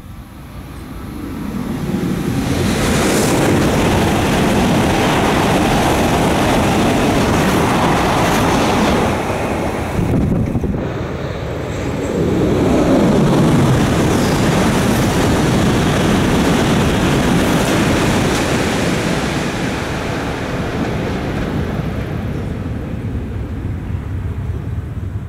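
Shinkansen bullet train passing at high speed: a loud rush of air and track rumble builds over about two seconds, eases briefly about ten seconds in, swells again with a falling pitch sweep, then slowly fades.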